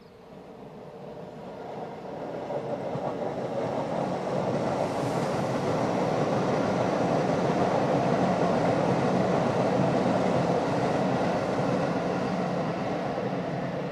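Boeing 747-400F freighter's four jet engines running at taxi power as the jet turns on a wet runway. The steady engine noise grows louder over the first few seconds, holds, then eases slightly near the end.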